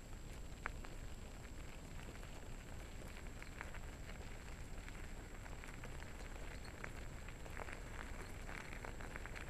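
Dog scooter's wheels rolling over a gravel road: a steady crackle of small stones with scattered sharper ticks.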